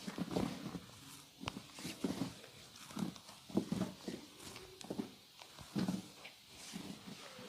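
Massage percussion: hands striking and slapping a person's body in uneven dull thuds about once a second, some in quick pairs, with a few sharp clicks among them.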